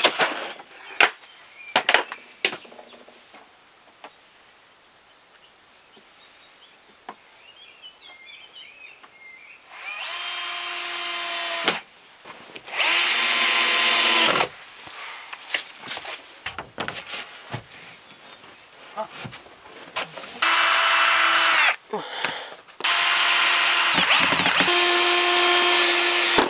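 Power drill driving screws into thin plywood wall panels: four short runs of the motor, each a second or few long, at a steady pitch. A few sharp knocks and taps come in the first couple of seconds.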